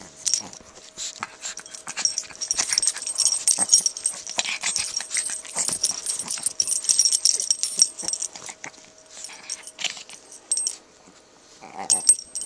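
Small Chihuahuas play-fighting on a blanket: a busy run of scuffles, rustles and small dog noises, going quieter for about a second shortly before the end, then picking up again.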